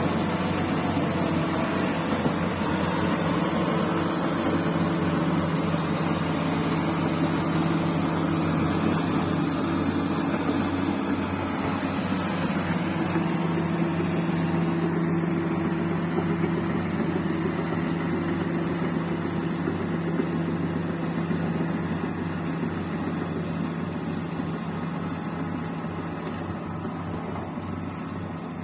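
Bulldozer's diesel engine running steadily with a low, even drone, getting somewhat quieter over the last several seconds.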